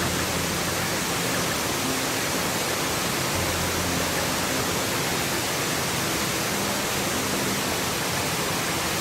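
Steavenson Falls, a tall multi-cascade waterfall, rushing steadily: an even, unbroken hiss of falling water.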